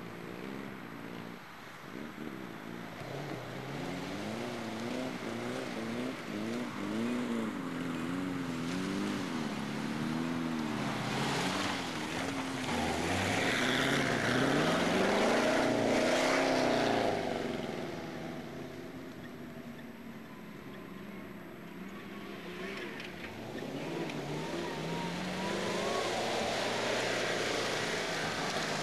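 Off-road racing vehicles' engines revving as they drive past, the engine note rising and falling again and again with throttle and gear changes. The sound is loudest about halfway through as one passes close, fades, then builds again near the end as another approaches.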